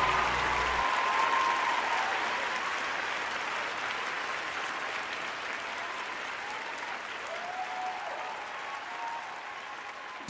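Crowd applauding, the clapping slowly fading out over several seconds.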